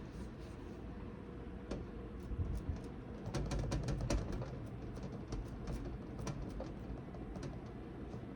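Bread-roll dough being shaped into balls by hand: scattered light taps and clicks, with a cluster of soft thumps in the middle.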